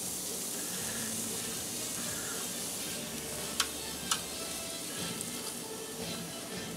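Raw, oil-coated shrimp sizzling softly as they are laid by hand into a preheated air fryer basket. There are two sharp clicks a little past halfway as shrimp or fingers tap the metal basket.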